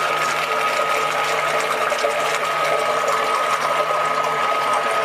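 Small electric motor of a homemade mash-tun mixer running steadily: an even whir with a constant high whine and a low hum, over a steady hiss.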